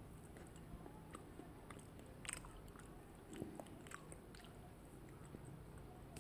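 Faint, scattered mouth clicks and chewing of someone eating kulfi close to the microphone, over quiet room tone.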